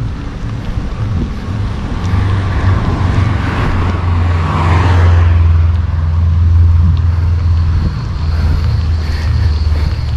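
Wind rushing over the microphone and road noise from a road bicycle in motion, with a motor vehicle going past that swells up and fades away around the middle.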